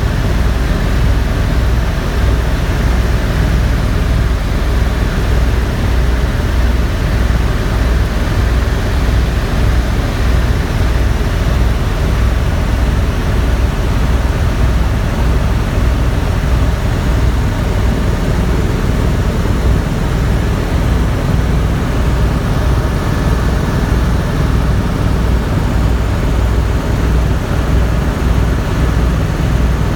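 Helicopter running, with steady turbine and rotor noise over a deep, rapid, even beat from the rotor blades.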